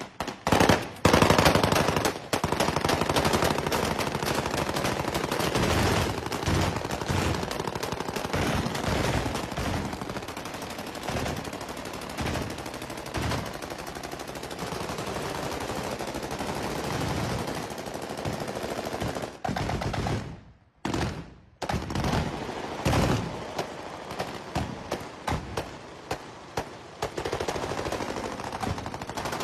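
Sustained celebratory automatic gunfire with live rounds: long, rapid bursts from assault rifles and a belt-fed machine gun, shots packed close together, with a couple of brief pauses about twenty seconds in.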